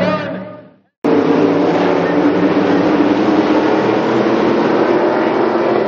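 The sound fades out over the first second, then cuts in abruptly to a pack of short-track stock cars running together on the track, their engines holding a fairly steady pitch.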